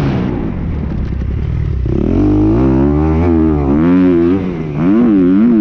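Motocross bike engine heard from on board while riding a dirt track: eased off for the first two seconds, then on the throttle, the revs rising and falling again and again, with a brief drop near the end before it pulls again.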